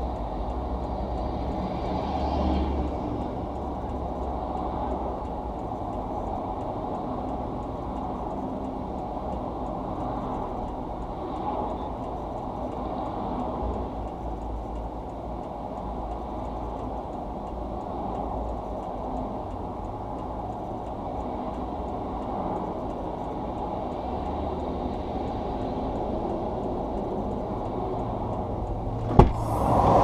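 Steady rush of highway traffic passing at speed, heard muffled through a parked car's rear window. Near the end comes a sharp click, and the traffic suddenly sounds much louder as the rear hatch swings open.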